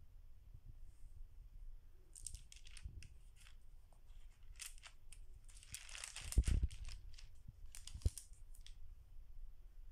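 Pages of a stamp stockbook being turned by hand: a run of short crinkly rustles and light clicks from the stiff pages and their clear strips, the loudest a rustle with a soft thump a little past the middle.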